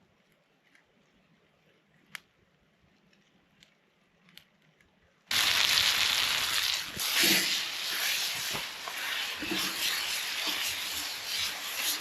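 A few faint crackles, then about five seconds in a loud, steady sizzle starts abruptly: food frying in a pan over a campfire, browning to a crisp.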